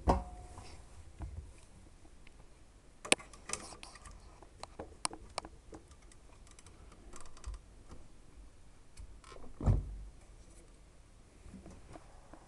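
Hoover W 420 washing machine with broken drum bearings: irregular clicks and knocks from the drum, a cluster of them a few seconds in, and two heavier thumps, one at the start and one near the end, over a low rumble.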